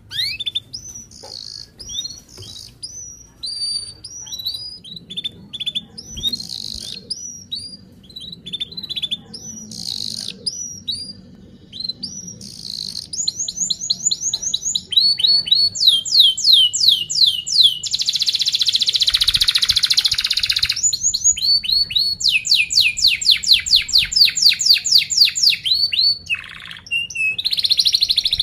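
Domestic canary singing: first a string of separate, quick downward-sweeping chirps, then from about halfway fast rolls of rapidly repeated notes, with a dense buzzing roll about two-thirds of the way in.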